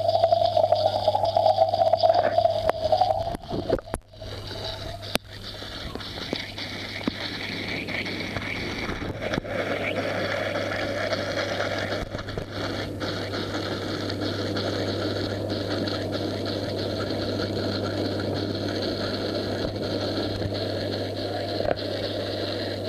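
Aquarium filter pump running with a steady mains hum and the rush of water through its outlet. A louder wavering tone sits over it for the first three seconds.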